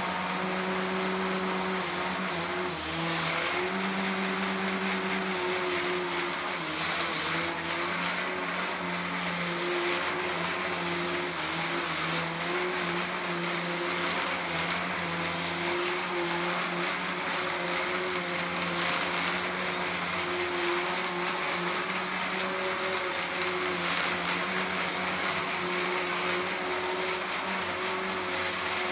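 A 15 lb combat robot driving around with its weapon spinning: a steady whine from the brushless outrunner weapon motor and its belt-driven spinner, over the hum of the BaneBots RS550 drive motors and P60 planetary gearboxes. The weapon's pitch wavers and dips briefly now and then, as the weapon slows when the drive speeds up on a single battery.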